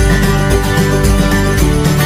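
Background instrumental music: a plucked-string tune with a steady beat.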